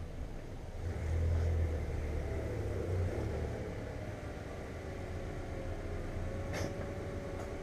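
Car engine running steadily with a low rumble that swells briefly about a second in; a short click comes near the end.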